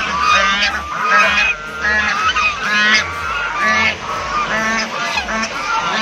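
A group of geese honking loudly and repeatedly, several calls a second overlapping one another: an excited racket set off by a newcomer's arrival.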